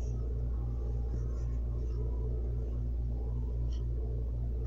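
Steady low hum with a faint regular pulsing in it, and a light rustle of a magazine page being turned near the end.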